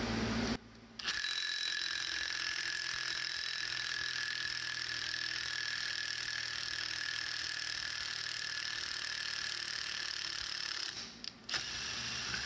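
A power tool running steadily as it turns the forcing screw of a homemade gear puller, drawing the drive gear off a Bendix air compressor. It stops briefly about half a second in and again near the end.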